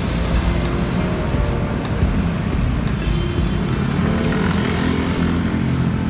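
Steady low rumble of city road traffic, with music playing over it.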